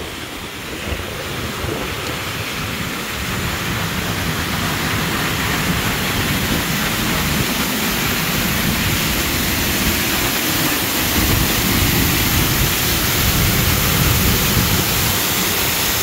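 Selvallafoss waterfall's falling water, a steady rushing noise that grows louder, with wind buffeting the microphone.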